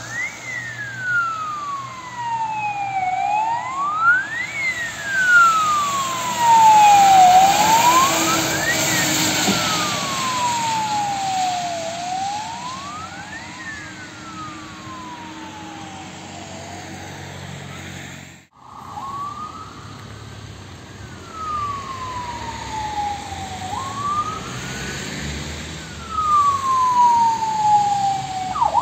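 Fire engine siren wailing in slow sweeps, each rising quickly and falling slowly, with the truck's passing noise swelling to its loudest about 7 to 9 seconds in. After a sudden cut, a siren wails again and switches to a fast yelp at the very end.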